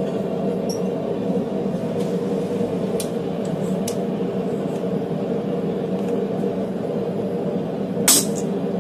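A steady whirring hum of running shop equipment, with light metal clinks as the red-hot D2 steel blank is set between the hollow bevel dies of a forging guillotine. About eight seconds in comes a single sharp hammer blow on the guillotine.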